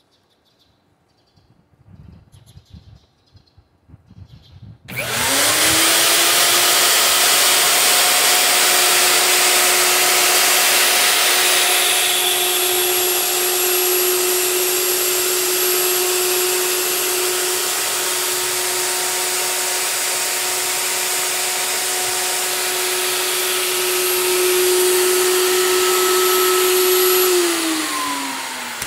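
Electric plunge router switched on about five seconds in: the motor spins up within a fraction of a second and runs steadily at full speed with a high whine. Near the end it is switched off and winds down, its pitch falling.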